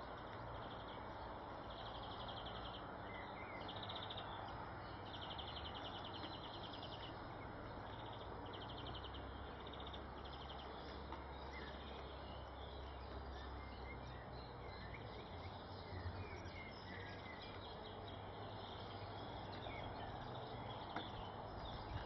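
Steady outdoor background noise with a low hum, and small birds chirping with short, fast, high trills now and then.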